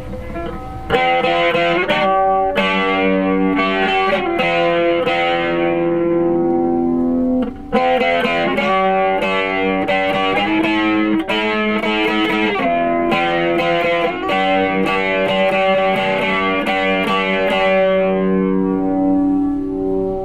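Electric guitar, a Squier Bullet Stratocaster on its EMG humbucker alone, played through an amplifier with a little overdrive: picked chords and ringing notes, with a short break about seven and a half seconds in.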